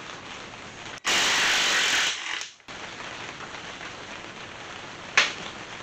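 Cordless impact wrench hammering a case-half bolt out of an NP231 transfer case for about a second, then winding down. A single sharp click follows near the end.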